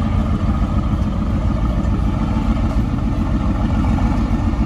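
A car engine running steadily at low revs, a deep rumble with fast, even pulses and no revving.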